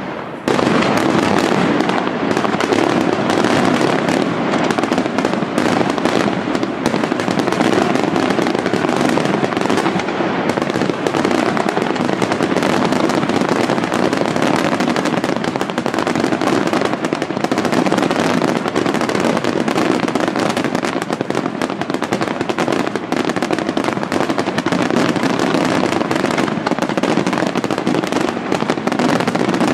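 Fireworks display: a dense, unbroken barrage of bursting shells and crackling, loud and rapid-fire throughout.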